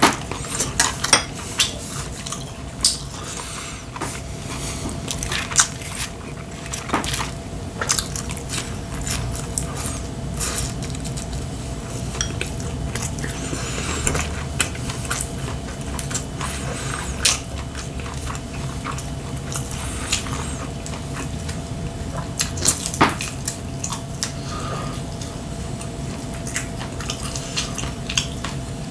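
Wooden chopsticks clicking and tapping against ceramic bowls and plates in irregular sharp clicks, with the wet chewing and mouth sounds of a person eating.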